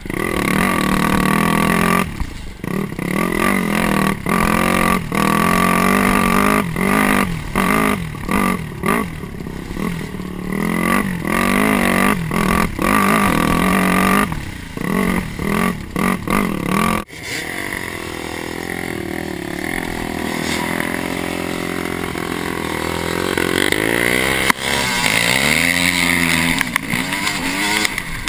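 Dirt bike engine, heard from the bike itself, revving up and dropping off again and again as the throttle is worked on a trail. About 17 seconds in, the level falls suddenly and the engine settles into a lower, steadier drone, with a few rises and falls in pitch near the end.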